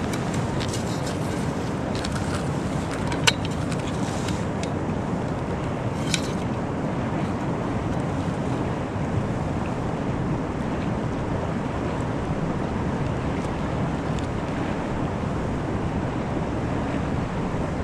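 Steady wind noise rushing over the microphone, with a sharp click about three seconds in and a softer one about six seconds in.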